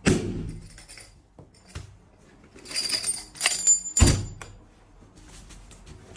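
Mini popcorn-cannon pressure pot released into a cloth bag: a sudden bang with a brief rush of escaping steam as the pot of puffed rice opens. About three seconds later come rustling and a heavy thump.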